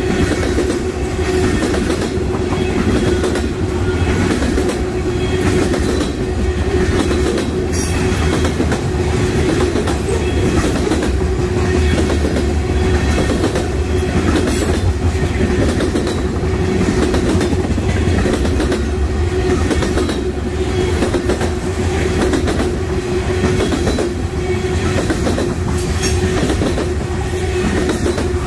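Freight train rolling past at steady speed, its wheels clicking over the rail joints over a continuous rumble and a steady hum.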